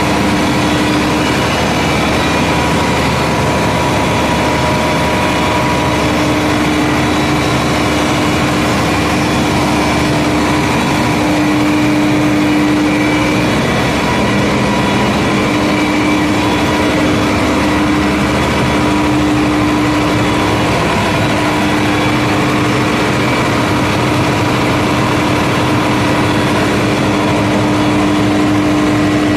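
Large generator engine running steadily at constant speed: a loud, even mechanical din with a steady hum.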